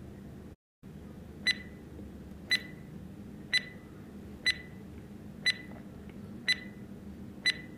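Quiz countdown-timer sound effect: a clock ticking about once a second, each tick short and sharp with a brief ringing tone, seven ticks in all after a short gap of silence near the start.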